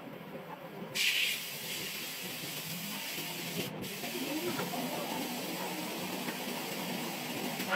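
Steady hiss at a large steel forging machine working a white-hot billet, starting suddenly about a second in and running on over a low mechanical rumble.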